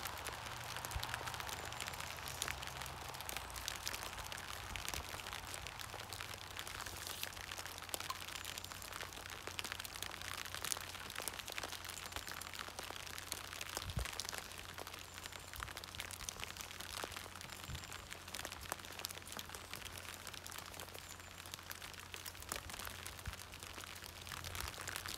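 Rain falling on a plastic sheet and wet card, a steady dense crackle of many small drop impacts.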